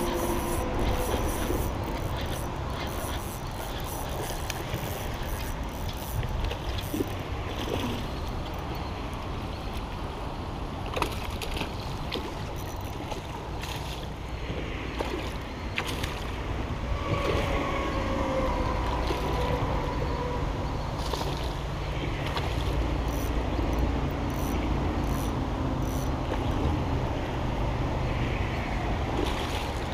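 Water sloshing and splashing as a hooked fish thrashes at the surface beside the bank, over a steady low rumble.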